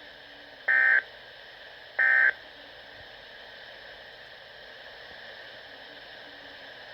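Two short warbling data bursts from a weather radio broadcast, about a second apart: the SAME end-of-message code that closes an alert or weekly test. Steady radio hiss follows.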